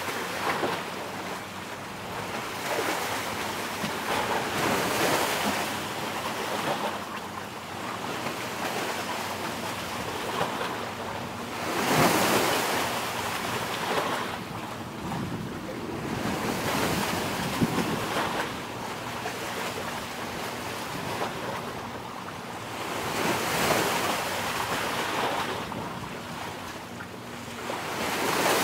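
Sea waves washing in, the sound swelling and falling away every few seconds, with wind buffeting the microphone and a faint steady low hum underneath.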